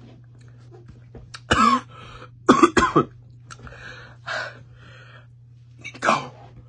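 A young man coughing in a run of short, separate coughs, the loudest two close together about two and a half seconds in, a weaker one near the end; the coughing comes from the burn of the Carolina Reaper chicken tenders he has just eaten.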